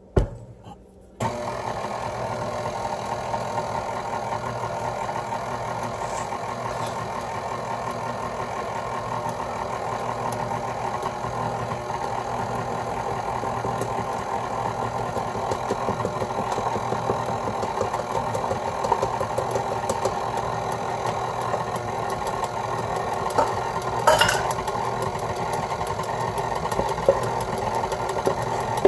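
KitchenAid Artisan stand mixer switched on about a second in, its motor running steadily while the flat beater turns through creamed butter and sugar as flour and cocoa powder are added a little at a time. A short knock just before it starts.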